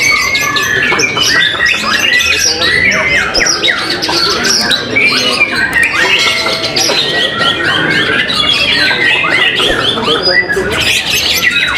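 White-rumped shama (murai batu) singing in competition: a fast, unbroken stream of varied whistles, slurred notes and chattering phrases.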